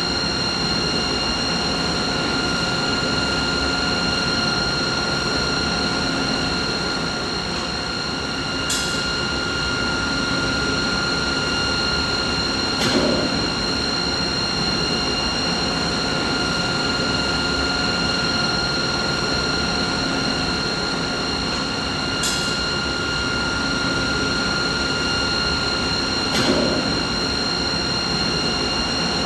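Steady machinery running: a constant whine of several high tones over an even mechanical rumble, with a sharp click now and then, four times.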